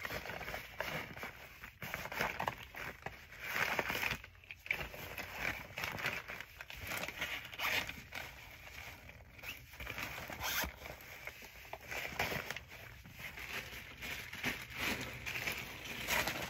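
Rustling and crinkling of plastic-wrapped medical supplies and a fabric bag being handled and packed, with scattered light clicks and knocks.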